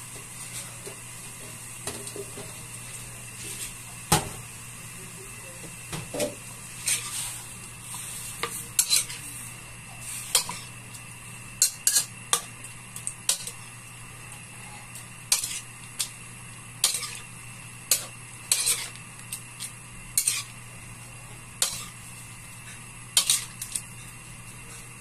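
Metal spatula clinking and scraping against a metal wok as rice vermicelli (bihon) is stirred into broth to soften, in irregular strokes over a steady low hum.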